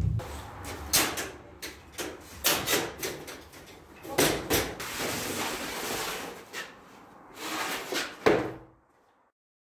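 A string of sharp metal knocks and clanks as a steel box trailer is handled and its bed tipped up. Then a wooden pallet is set down on a paved floor with a loud knock. The sound cuts off suddenly near the end.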